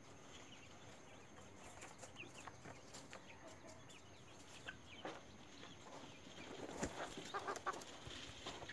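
Faint clucking of chickens, with scattered light clicks and knocks; the clucks and clicks grow busier and louder about two-thirds of the way through.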